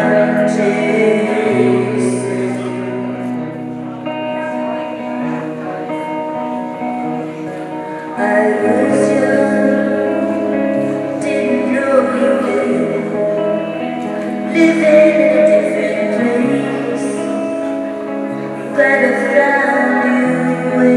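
A woman singing live while accompanying herself on electric guitar, with slow sustained chords under her voice. The music swells louder about eight seconds in and again near the end.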